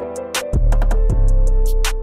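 Background music with a steady beat: regular high ticks over deep bass notes and held tones.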